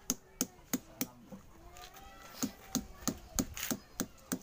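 Hand pliers clicking sharply as they work the edge of a rubber doormat, about three clicks a second, with a pause of about a second partway through.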